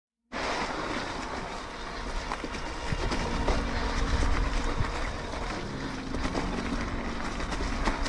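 Ride noise from a bike-mounted action camera: wind buffeting the microphone over the rolling of knobby mountain-bike tyres on rough ground, with many small knocks and rattles. It starts abruptly after a moment of silence.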